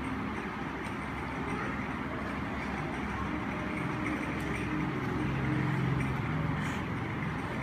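Steady background rumble and hiss, with a faint low hum that swells a little about five seconds in.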